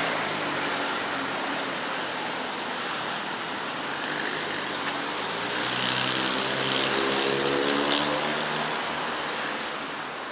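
Road vehicle noise: a steady rush of traffic or tyre noise, with an engine note that rises in pitch and grows louder from about halfway through, then fades near the end.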